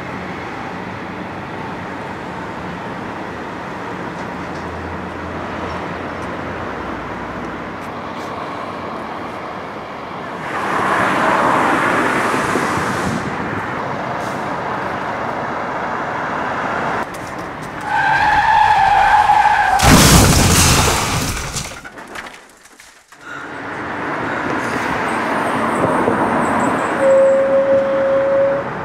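Car traffic passing on a street, then a car horn sounds for about a second and a half. At once a loud tyre skid and impact follow: a car striking a pedestrian. The noise dies away briefly, then street noise returns.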